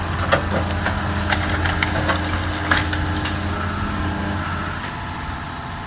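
Demolition machine's engine running steadily, with scattered sharp cracks and crunches of wood as the old house is torn down.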